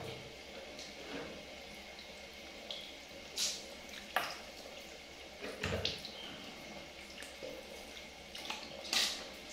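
Handheld shower head lying in a stainless steel bathtub, its spray running steadily against the metal side of the tub, with a few brief sharp sounds standing out.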